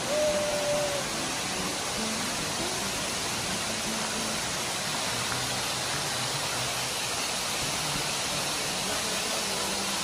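Steady rushing of a tall waterfall crashing down a rock face, even and unbroken, with faint background music under it.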